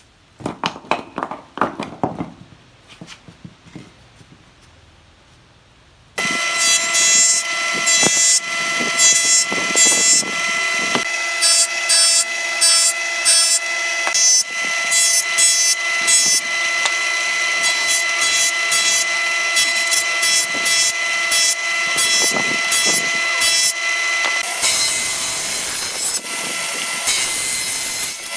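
Wooden pallet blocks tumbling out of a container and clattering onto a concrete floor. About six seconds in, a woodworking machine comes in abruptly, running with a steady whine, and cuts into wood over and over. Near the end a table saw blade cuts through a pallet block.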